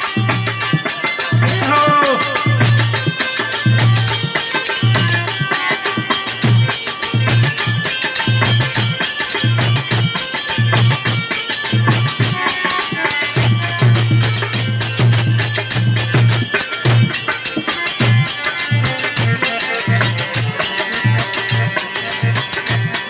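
Instrumental interlude of a Rajasthani folk bhajan: a harmonium melody over a steady, fast beat of drum and metallic jingling hand percussion.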